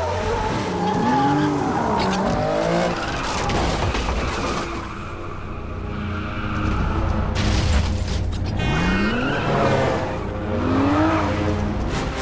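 Movie car-chase soundtrack: car engines revving up and down with tyre squeals over a steady low rumble, with music underneath. A sudden harsh rush of noise comes in a little past halfway.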